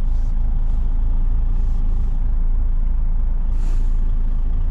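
Articulated lorry's diesel engine running steadily at low revs, heard inside the cab while reversing, with short faint hisses and a louder air hiss about three and a half seconds in.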